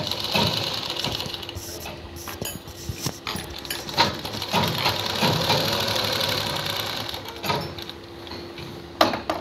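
Domestic sewing machine stitching fabric, running in two spells: briefly at the start and again from about four to seven and a half seconds in, with clicks between and a couple of sharp knocks near the end.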